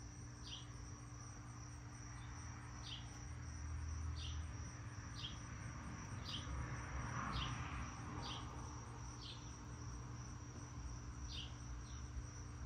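Outdoor insects trilling in one steady high tone, with short falling chirps repeating about once a second over a faint low hum.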